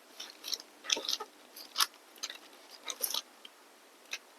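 A series of short, irregular clicks and rustles from hands handling a PlayStation 4 Slim and its power lead, with no startup beep or fan following. The console is completely dead, traced to a blown fuse in its ADP-160FR power supply.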